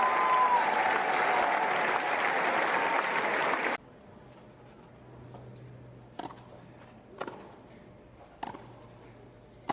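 Tennis crowd applauding, cut off suddenly a little under four seconds in; then a quiet arena hush with four sharp taps about a second apart, like a tennis ball bounced before a serve.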